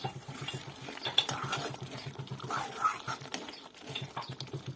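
A metal spoon stirring and scraping thick tomato-onion masala in a metal kadai, with sharp clinks of the spoon against the pan. Under it runs a low hum that pulses about ten times a second.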